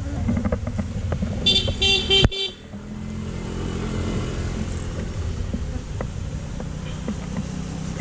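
A motorcycle horn toots for about a second, ending with a sharp click. Then the motorcycle's engine runs steadily and grows slightly louder toward the end.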